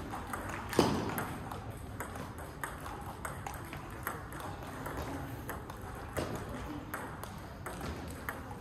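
Table tennis ball clicking off bats and table in quick, irregular knocks, several a second, with one louder knock about a second in.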